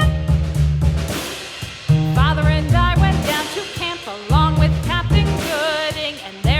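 Background music with a steady drum and bass beat, joined about two seconds in by a sung melody.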